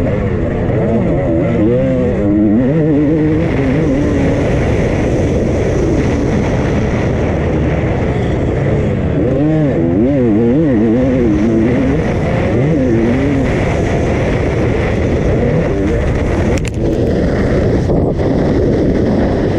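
2001 Honda CR250R motocross bike's two-stroke single-cylinder engine being ridden hard, revving up and falling off again over and over as the throttle is worked, with a short drop in sound near the end.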